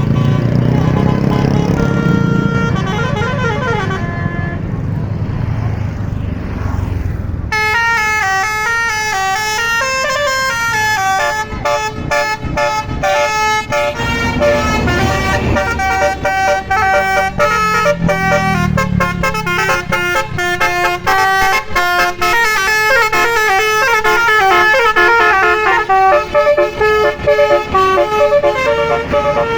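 Tour bus engine running, then about seven seconds in the bus's roof-mounted Basuri multi-tone 'telolet' horn starts playing a quick tune of stepping notes, which goes on to the end.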